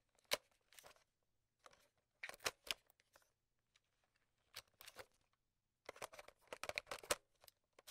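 Faint, irregular sharp clicks and snips, some single and some in quick clusters, with silence between.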